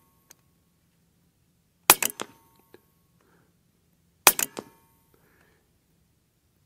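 Two shots from a Western Airguns Rattler .30 semi-automatic PCP air rifle firing 80-grain slugs, about two and a half seconds apart. Each is a sharp crack trailed by a few quick echoes.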